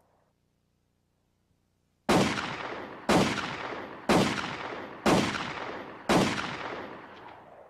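Five gunshots, starting about two seconds in and spaced evenly about a second apart, each ringing out and dying away before the next.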